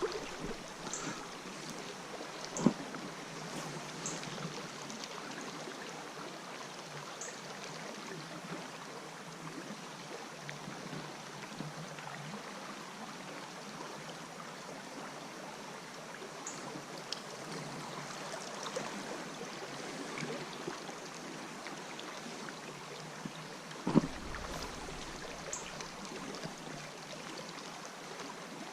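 Steady rush of flowing river water, with a sharp knock about three seconds in and another near the end.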